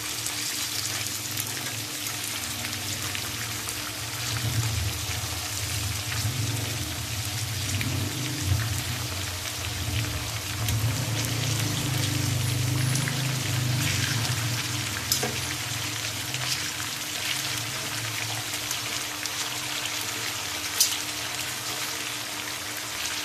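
Chicken pieces sizzling and spitting in hot oil in a frying pan as they are turned over, with a few sharp clacks of the metal tongs and spatula against the pan.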